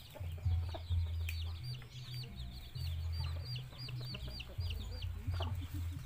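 Chickens clucking, with a quick, steady run of high peeping calls, about three or four a second, over a low rumble.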